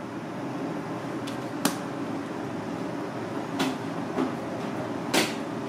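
Four sharp clacks from hands and utensils during sushi making, the loudest about a second and a half in and near the end, over a steady background hum.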